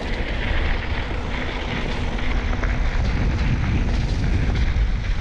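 Wind buffeting the microphone of a moving camera: a steady low rumble with a hiss above it.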